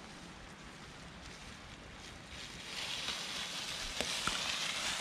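Mountain bike tyres rolling and scrabbling over loose dirt on a steep descent taken very slowly with the brakes hard on, the noise swelling about two seconds in, with a few sharp clicks and knocks near the end.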